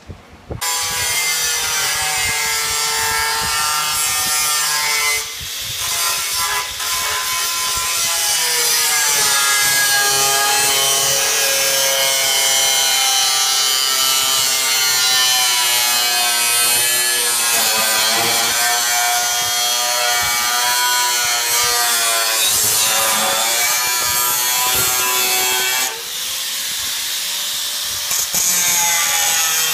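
Electric angle grinder with a cut-off disc cutting into a steel tank: a loud, continuous motor whine that wavers and sags in pitch as the disc bites into the metal, easing off briefly about five seconds in and again near the end.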